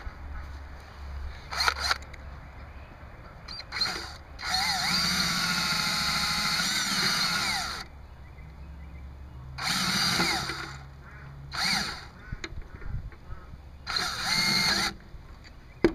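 DeWalt drill driving a self-tapping screw into the metal casing of a small-engine crankshaft oil seal. The trigger is pulled in several short bursts and one longer run of about three seconds, and the motor whine rises and falls in pitch with each pull.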